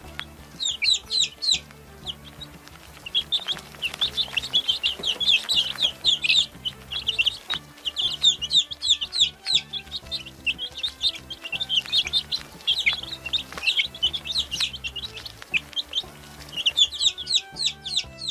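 Several baby chicks peeping continuously: rapid, high-pitched calls that each fall in pitch, with soft background music underneath.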